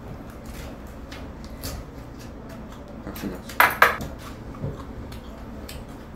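Chopsticks and tableware clinking against dishes at a dining table: scattered light taps, with two louder clatters close together a little past halfway.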